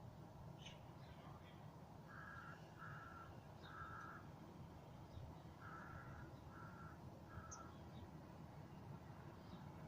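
A faint bird calling: two runs of three short calls, with a few fainter high chirps over a steady background hiss.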